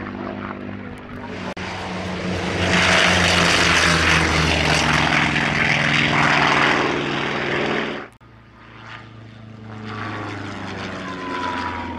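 Propeller warbird radial engines: a Grumman Avenger's engine runs on the runway. Then, after a couple of seconds, a Vought Corsair's radial engine runs loud at full takeoff power as it lifts off. About eight seconds in, that sound cuts off abruptly to the quieter engine of a Cessna A152 Aerobat light aircraft climbing away.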